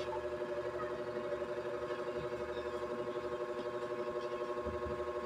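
A steady motor hum made of several held tones, with a quick, even pulse in its level.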